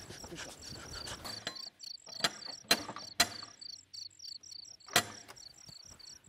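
Crickets chirping steadily in a fast even rhythm, about four chirps a second, starting about a second and a half in. A few sharp knocks come through the middle and once near the end.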